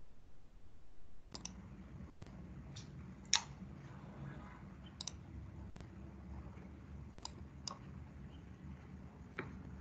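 Computer mouse clicks, sparse and irregular, about nine of them, one louder about three and a half seconds in, over a low steady background hum.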